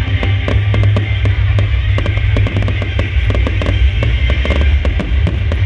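Fireworks show: many sharp bangs and crackles in quick succession over a deep continuous rumble, with music playing along.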